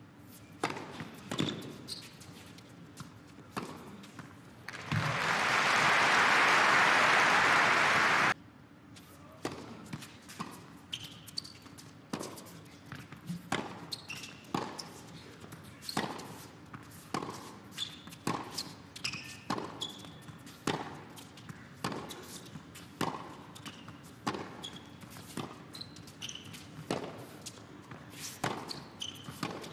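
Tennis ball bouncing and being struck by rackets in a long baseline rally, each hit and bounce a sharp knock echoing around an indoor arena. Earlier, crowd applause swells for a few seconds and then cuts off abruptly.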